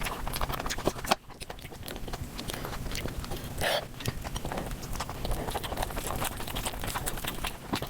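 Close-miked mukbang eating sounds sped up four times: fast, dense chewing and mouth smacks that run together into a rapid clatter, with a brief break about a second in.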